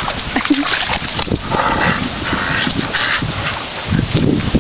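Dogs vocalising, with whines, while play-fighting over a stick.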